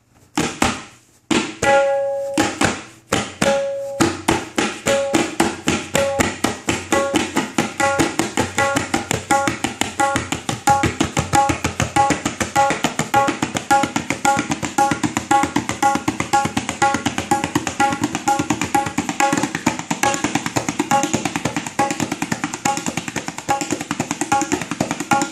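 Solo tabla imitating a train. A few spaced, ringing strokes open the passage, then from about four seconds in they quicken into a fast, even stream of strokes on both drums, like a train running.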